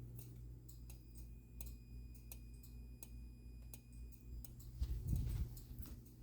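Faint repeated electrical clicking from a fire alarm setup, over a steady low mains hum, with a faint high whine for about four seconds. A low thump comes about five seconds in.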